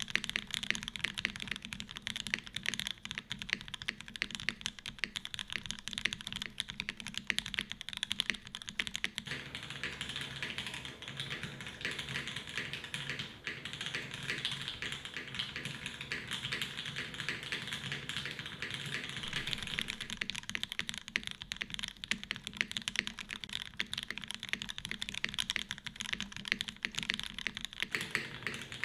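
Continuous fast typing on a custom mechanical keyboard with lubed Oil King linear switches in an aluminium plate and GMK keycaps: dense key strokes with no pauses.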